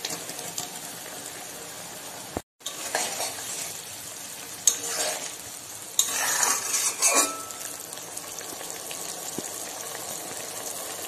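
Soya chunks cooking in boiling, sizzling gravy in a kadai, a steady bubbling hiss, with a spoon stirring and scraping against the pan in several strokes, the loudest a little past halfway.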